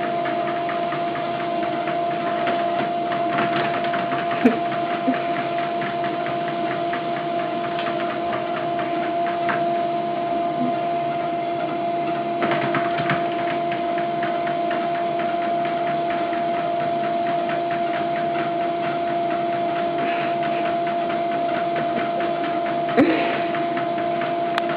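Treadmill motor running steadily with the belt moving, a constant two-tone whine over a hum. A few light knocks come through, the loudest near the end.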